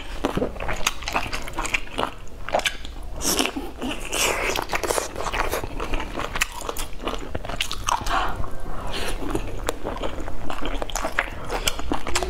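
Someone chewing and eating dumplings with their mouth: a steady run of wet smacks and clicks.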